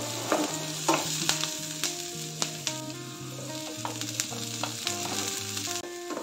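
Chopped onions and green chillies sizzling in hot refined oil in a non-stick frying pan, with a wooden spatula clicking and scraping against the pan at irregular moments.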